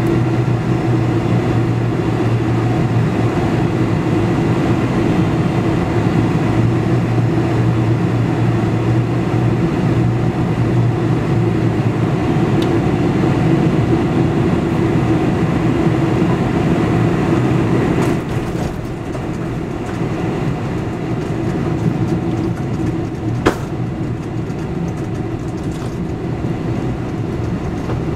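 Cabin noise over the wing of a Boeing 747-400 on final approach and onto the runway: a steady engine drone with rushing air. About two-thirds of the way through, the sound drops a little and the engine tones fade into a rougher rumble. A sharp knock follows a few seconds later.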